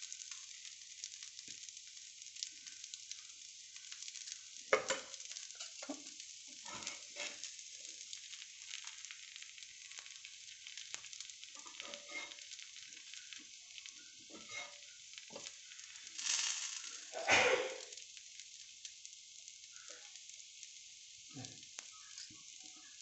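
Masala dosa sizzling on a hot tawa, with scattered scrapes and taps of a steel spoon and spatula against the pan. The loudest scrapes come about five seconds in and twice about three quarters of the way through.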